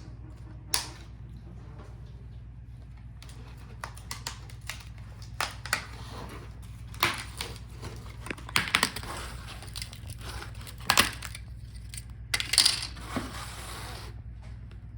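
Plastic clips of a laptop's front display bezel being pried loose: an irregular run of small clicks and snaps, with a few louder cracks around the middle and near the end, over a steady low hum.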